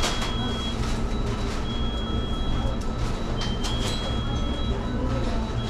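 Busy fast-food kitchen: a steady low hum of kitchen equipment, with a high electronic beep from kitchen timers sounding several times for about a second at a time, and a few sharp clatters.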